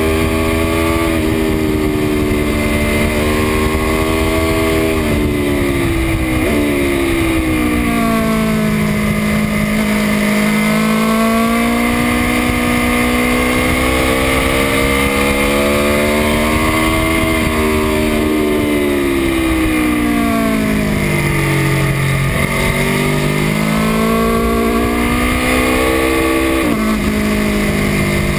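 Aprilia Tuono V4 motorcycle engine at track pace: the revs climb with quick upshifts, the pitch dropping sharply, then fall away twice as the bike slows into corners before pulling hard again. Steady wind rush over the microphone.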